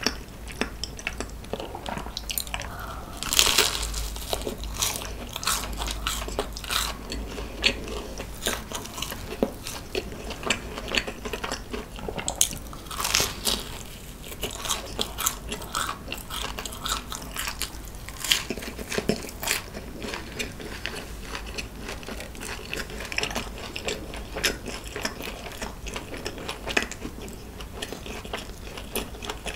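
Close-miked eating: biting and chewing a sugar-coated Korean twisted doughnut (kkwabaegi), heard as a dense run of small, sharp, wet mouth clicks. The loudest bites come about three and a half seconds in and again around thirteen seconds.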